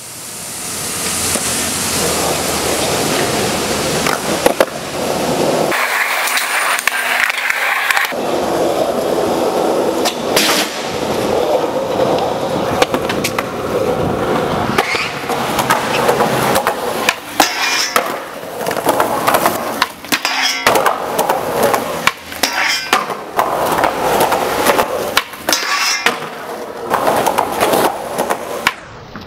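Skateboard wheels rolling on concrete, broken by repeated sharp clacks of the board hitting the ground during tricks.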